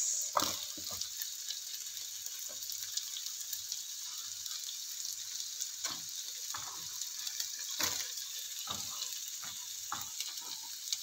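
Vegetables frying in oil in a nonstick pan, a steady sizzle, as carrot strips are dropped in among the bell pepper and onion. Scattered short clicks and taps sound against the pan, about one every second or two.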